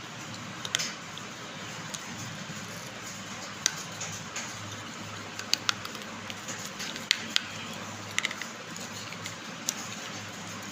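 Pieces of baked clay pot crunching and snapping in short, sharp cracks, scattered irregularly over a steady background hiss.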